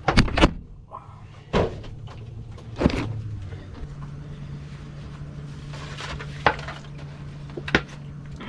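Several separate sharp knocks and clicks, like a door or cupboard in the van being worked while someone moves about. A low steady hum sets in about four seconds in.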